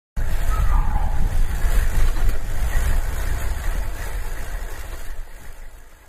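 A steady low rumble with hiss, laid over an animated intro, that fades out over the last two seconds.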